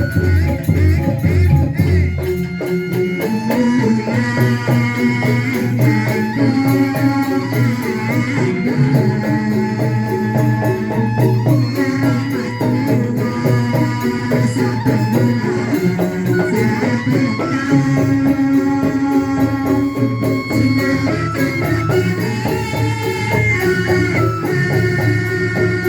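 Music: an instrumental passage with a melody and a steady, rattling percussion rhythm. A deep bass part drops out about two and a half seconds in.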